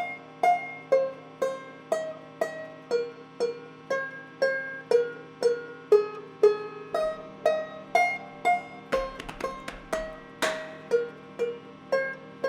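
Soft instrumental background music: a plucked-string melody, about two notes a second, over a held low note.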